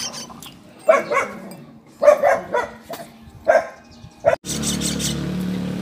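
A dog barking several times in short barks. About four seconds in, the sound cuts abruptly to a steady hum.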